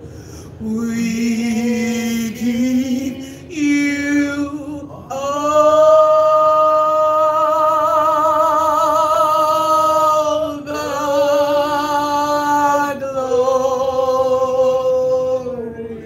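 Worship singing: a voice holding long, drawn-out notes with a wavering vibrato over a steady sustained background tone, with short breaks between phrases.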